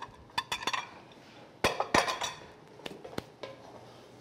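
Wooden spoon knocking and scraping against a nonstick pot while stirring a thick paste: a scatter of short clicks and knocks, loudest about two seconds in.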